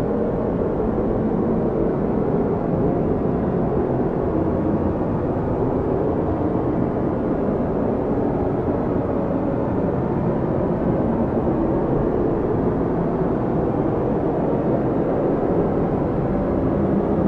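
Strong snowstorm wind blowing steadily: a low, rushing noise that swells slightly now and then.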